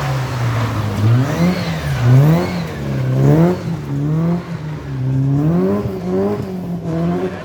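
Rally car engine revving hard, its pitch climbing and dropping again and again about once a second as the throttle is worked on and off.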